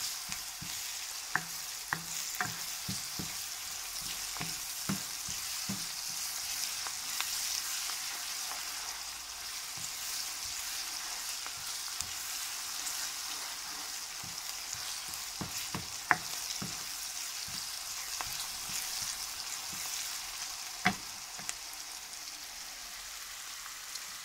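Chopped onion sizzling steadily in hot olive oil in a frying pan as it sautés and softens. A wooden spoon stirs it, knocking and scraping against the pan now and then, with a few sharper knocks in the second half.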